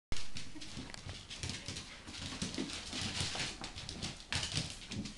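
A 7.5-week-old black Labrador puppy and a Jack Russell terrier at play, making dog sounds among scuffling and light knocks.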